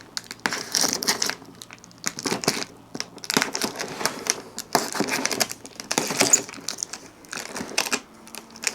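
Packaging crinkling and rustling in irregular bursts as it is handled.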